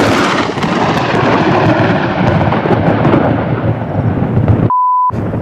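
Loud rolling thunder from a close lightning strike: a continuous rumble whose high end slowly dies away. Near the end the rumble is cut out for under half a second by a short steady beep, then returns.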